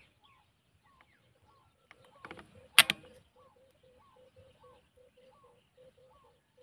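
Faint bird calls repeating: a low note about three times a second with higher chirps between. About three seconds in, a sharp double click.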